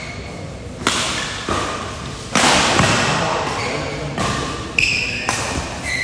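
Badminton rackets striking the shuttlecock in a fast doubles rally: a run of sharp smacks, each ringing on in the hall's echo, with short shoe squeaks on the court floor between them.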